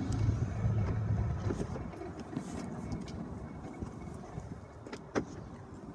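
A low steady hum fades out over the first second and a half, followed by quiet handling rustle. About five seconds in comes a single sharp click: the latch of the BMW i3's rear-hinged back door being released.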